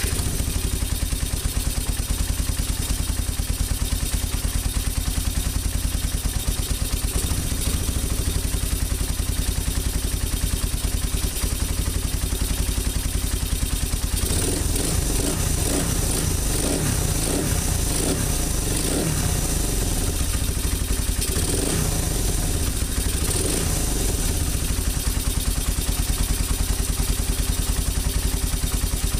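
Suzuki Raider 150's single-cylinder four-stroke engine running on a newly fitted OKO 28 mm carburettor, being tested. It idles steadily, with a run of short throttle blips about halfway through and a couple more a little later.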